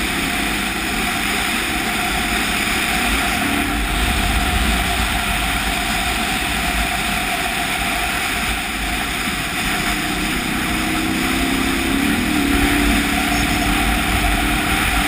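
KTM 990 Adventure's V-twin engine running steadily under a rider and passenger, mixed with heavy wind rush on the microphone. The engine note climbs a little about ten seconds in.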